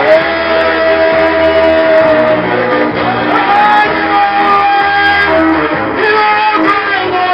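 Loud music with a plucked guitar and long held notes over it.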